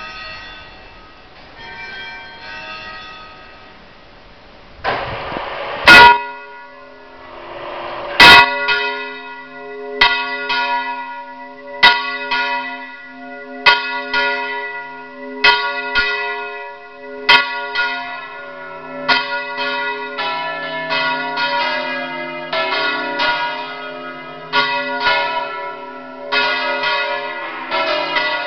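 Large church bells in the belfry swinging full circle (Valencian 'volteig'), struck up close. Faint ringing at first, then two very loud clangs. The strikes then settle into a steady beat of about one a second, with more bells overlapping and the ringing growing denser from about 20 seconds in.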